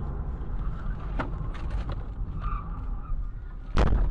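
Steady low rumble of a car's tyres and engine heard from inside the moving car, with a few faint clicks and a sudden loud thump near the end.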